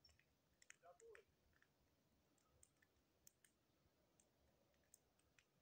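Wood campfire crackling faintly, with irregular sharp pops and ticks, plus a brief faint squeak about a second in.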